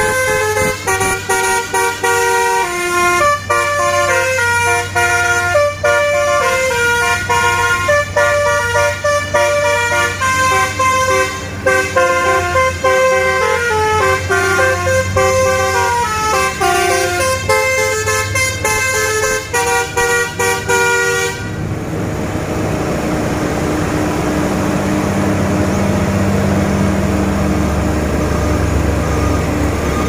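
Basuri telolet multi-tone truck horn playing a dangdut-style melody, note after note, for about twenty seconds. It cuts off suddenly, leaving the truck's engine and road noise.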